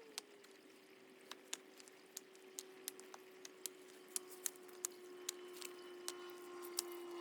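Cooking sounds: sparse sharp crackles and pops, two or three a second, over a faint steady whistling tone that slowly drops in pitch and grows a little louder toward the end.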